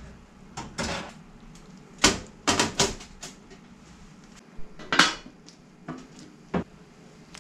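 Sheet-metal panels of a stovetop smoker box knocking and clattering as its door is shut and its lid is set on top: a string of sharp knocks, the loudest a few clustered around two to three seconds in and one about five seconds in.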